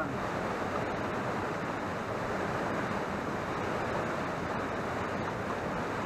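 Steady rushing of a rocky mountain stream, water running over boulders.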